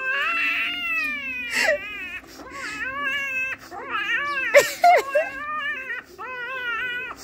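A man crying in a high-pitched, baby-like wail: a string of drawn-out cries, each sliding down in pitch, broken by short catches of breath.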